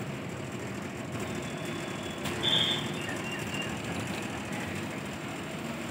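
Steady hum of street traffic. A short, high-pitched beep or chirp about two and a half seconds in is the loudest thing.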